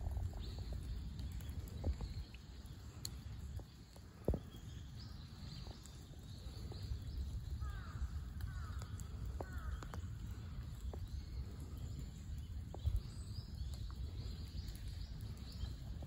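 Outdoor pond-side ambience: a steady low rumble with scattered clicks and a sharp knock about four seconds in, and a few faint, short bird chirps in the middle.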